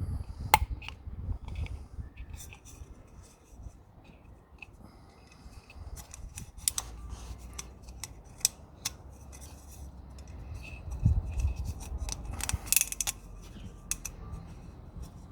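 Scattered light clicks and soft rubbing of small parts being handled by hand, as new rubber O-rings are worked onto the oil filter housing cap, with a quick run of clicks about twelve seconds in.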